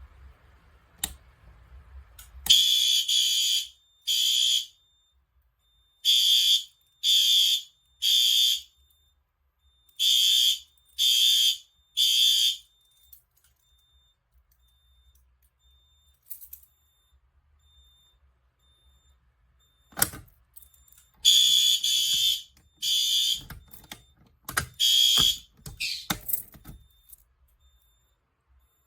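Fire alarm horns sounding the temporal-three evacuation pattern: groups of three short, harsh beeps, each group about four seconds apart. After a pause of several seconds a sharp knock is heard, then another run of beeps that breaks off.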